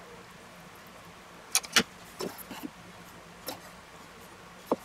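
Spoon and stainless steel bowls being handled on a wooden cutting board: a series of short sharp clicks and knocks. The loudest two come close together about one and a half seconds in, with a few smaller knocks after, over a faint low hum.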